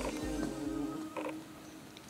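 22-day-old puppies whimpering faintly in a huddle, with a thin drawn-out whine and a short squeak about a second in.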